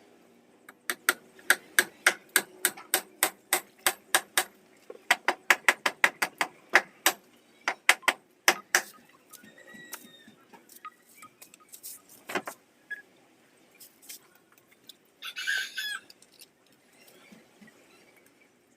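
Hammer blows on wood, a fast run of sharp, even strikes, about three or four a second for some eight seconds with a short pause partway. Scattered lighter taps follow, and a brief harsh call near the end.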